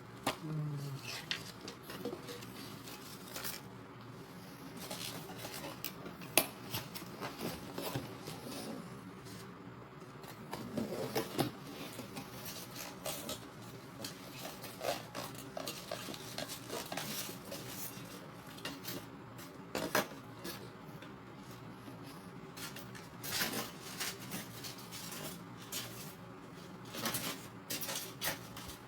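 Metal and plastic parts of a new meat mincer clinking and knocking as they are handled and taken out of their packaging, in scattered irregular clicks with a few louder knocks.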